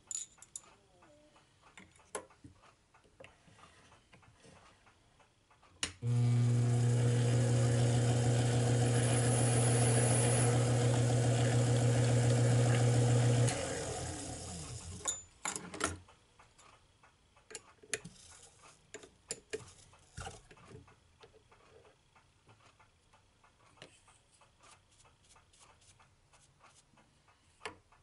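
Lathe motor starting about six seconds in and running with a steady hum for about seven seconds, then switched off and winding down. Scattered light clicks and taps follow.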